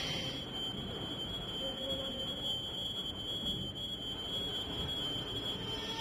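A steady high-pitched tone held over a low rumble, stopping near the end.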